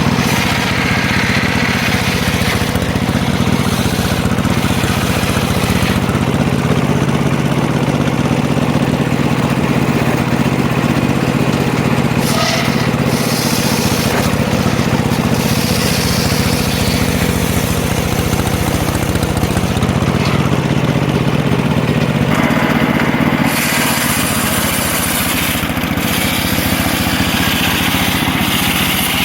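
Wood-cutting circular saw machine running steadily with a constant low hum. Higher cutting noise rises and falls over it, growing louder near the end.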